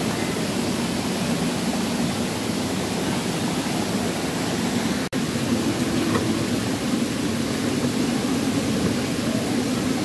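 Waterfall and stream water rushing steadily over rocks, a constant roar. It breaks off for an instant about halfway through.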